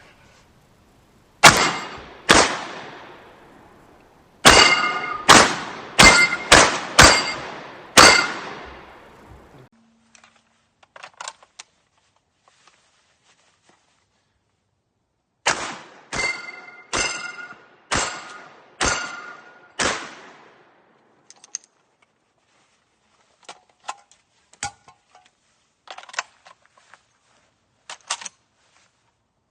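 Semi-automatic 12-gauge shotgun firing in two fast strings of about eight shots each, two or so a second, with the steel plates of a Texas Star target ringing after the hits. Scattered faint metallic clinks follow the second string.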